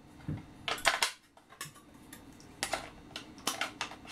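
AA batteries being fitted into a Spektrum STX2 radio transmitter's plastic battery compartment: a run of irregular light clicks and taps as the cells are handled and pressed into place.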